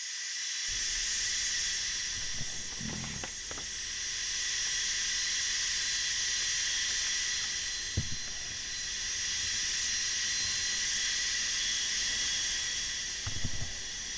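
Small bench belt sander running with a steady hiss as a piece of olive burl is pressed against the belt, the sanding noise swelling and easing as the pressure changes. A couple of brief light knocks, one about halfway through and one near the end.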